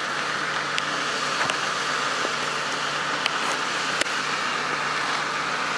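Steady mechanical hum like a vehicle engine running, with a few faint ticks scattered through it.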